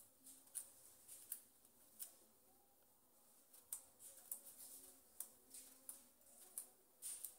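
A small kitchen knife cutting eggplant held in the hand, a cube at a time: faint, irregular clicks as the blade snicks through, with a short lull near the middle.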